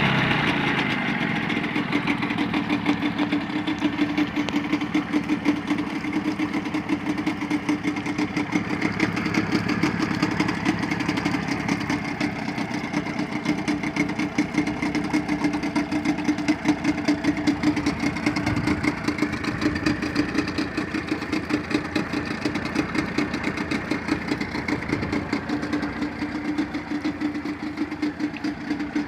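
An engine idling steadily while it is warmed up, a fast, even pulsing with no change in speed.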